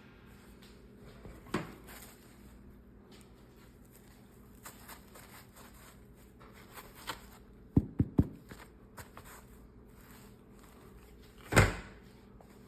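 Quiet room tone with a few short, scattered knocks and clicks: a quick cluster of three about eight seconds in, and the loudest single knock near the end.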